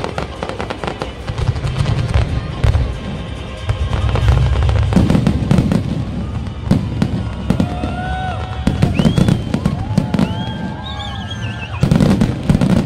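Fireworks display: a dense, continuous run of bangs and crackles from aerial shells and rising comets, with a heavy low rumble underneath.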